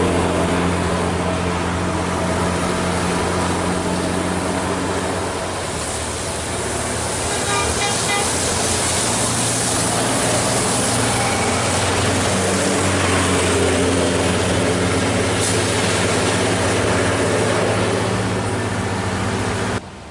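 Diesel coach buses driving past on a wet road: a steady low engine drone over tyre hiss on the wet asphalt. One engine fades around six seconds in, another comes up from about twelve seconds in, and the sound cuts off abruptly just before the end.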